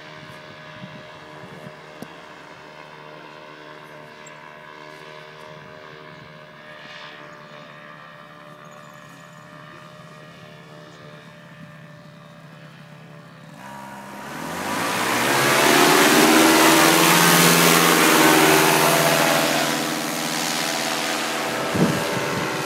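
Paramotor engine and propeller droning steadily at a distance. About 14 seconds in, a paramotor engine revs up quickly, its pitch rising, and runs loud at high power close by. It eases off a little near the end.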